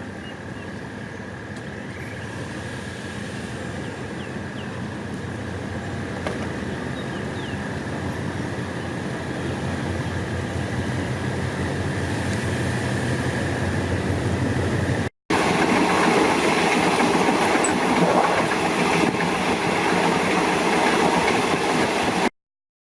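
Train running on rails with a steady high whine, growing steadily louder. After a sudden break about fifteen seconds in, the rattle comes back louder, then cuts off near the end.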